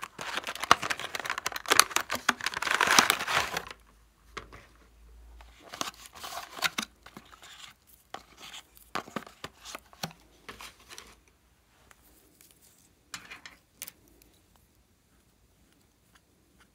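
Cardboard box and plastic packaging of a set of oil pastels being torn open and crinkled, loudest in the first few seconds. This is followed by scattered clicks and rustles as the pastels are handled in their plastic tray.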